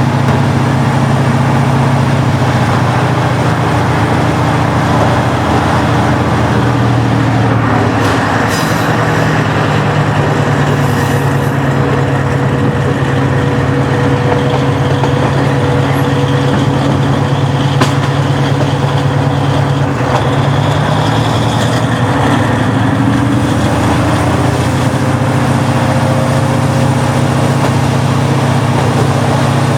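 KiHa 40-series diesel railcar with its original six-cylinder DMF15HSA engine running steadily, its drone shifting in pitch about a quarter of the way in and again about two thirds in, with a thin steady whine above it.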